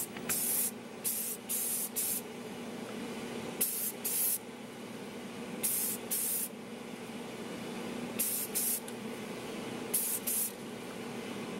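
Rust-Oleum aerosol spray can spraying paint in short hissing bursts, mostly in quick pairs about every two seconds, over a steady hum.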